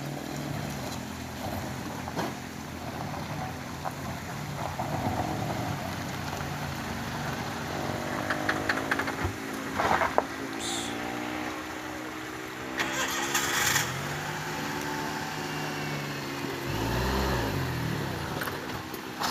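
Daihatsu Xenia's engine revving unevenly under load as the car strains on a steep, loose gravel climb, the pitch rising and falling several times. A short harsh burst of noise comes about 13 seconds in, and the revs swell and drop near the end.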